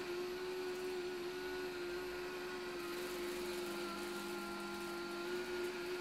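Kabum Smart 700 robot vacuum-mop running in mopping mode across a hard tile floor: a quiet, steady whir with a constant hum.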